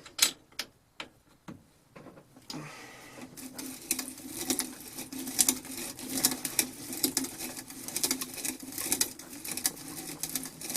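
Vintage hand-crank drill being cranked: a few separate knocks at first, then from about two and a half seconds a steady whirring rattle with fast clicking from its gears as the auger bit bores into wood.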